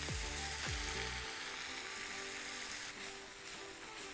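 Background music over the steady sizzle of a skillet of olive oil, garlic, pasta water and broccoli rabe. The music's low notes drop out about a second in.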